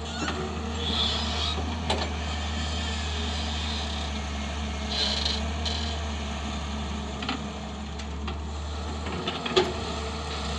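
Excavator's diesel engine running steadily at work, with two short hisses and a few sharp clanks; the loudest clank comes near the end.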